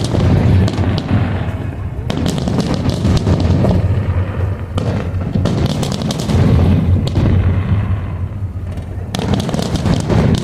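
Fireworks display: a dense, continuous run of booms and crackling bursts over a steady low rumble.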